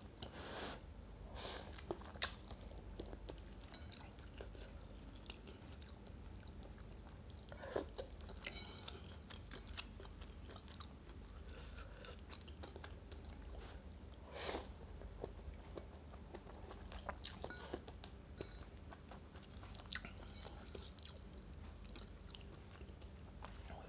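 Close-up chewing of rice vermicelli noodles in chicken broth: soft wet mouth clicks and smacks, with a few louder mouth noises scattered through, over a low steady hum.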